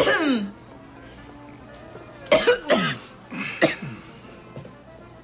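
A person's voice making wordless sounds: a loud falling groan at the start, then a cluster of short coughing grunts about two to four seconds in, over soft background music.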